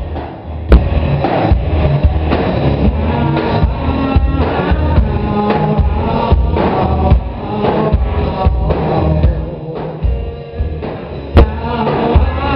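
Live rock band playing: electric guitars, bass guitar and drum kit with a steady beat, instrumental with no vocals. Two sharp hits stand out, about a second in and near the end.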